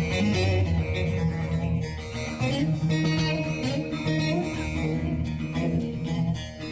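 Long-necked bağlama (saz) played with a pick: a plucked instrumental melody of a Turkish folk song, with no singing.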